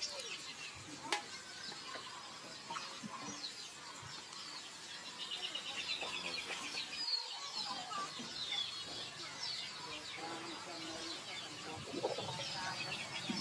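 Birds chirping and twittering, with a quick trilled run of calls midway. A single sharp tap about a second in.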